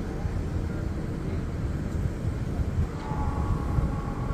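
Low rumble of a Trackmobile railcar mover pushing rail cars. About three seconds in, a faint high squeal joins it.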